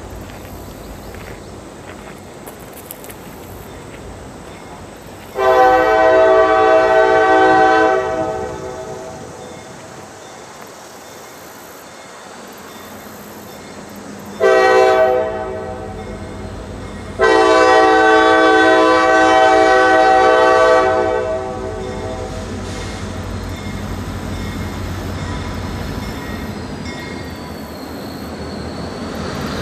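CSX diesel locomotive's air horn sounding three blasts, long, short, long, each a chord of several steady tones. After the horn, the rumble of the approaching locomotive slowly grows louder.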